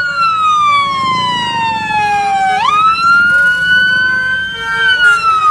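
A single siren-like wailing tone gliding slowly down in pitch, then jumping back up about halfway through, holding, and beginning to glide down again near the end.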